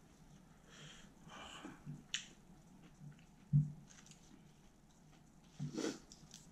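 A person eating: soft chewing and wet mouth sounds, with a few small clicks and a short low thump about three and a half seconds in.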